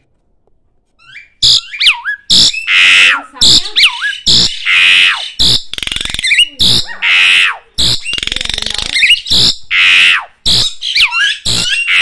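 Caged black-collared starling shrieking: after about a second, a long, loud run of harsh, rasping calls mixed with short whistled notes that slide up and down.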